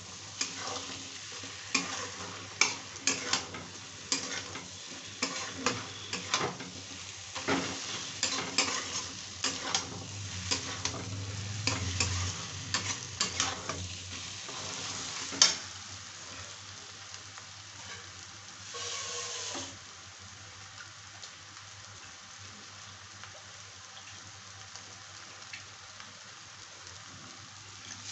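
Metal spatula scraping and knocking against a steel kadai as chicken curry masala is stirred, over a steady sizzle of frying in oil. The clatter stops a little past halfway, leaving the sizzle alone, with one brief louder hiss about two-thirds in.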